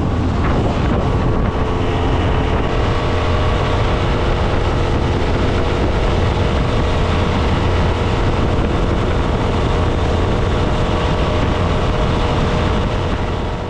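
25 hp Yamaha four-stroke outboard running steadily at high throttle, with water rushing and spraying past the transom; it eases off slightly near the end. The engine is turning a stainless steel propeller that holds it about 500 RPM lower, which the owner takes for overpropped.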